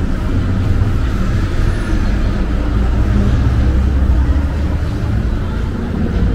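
Steady low rumble of road traffic on a busy city street.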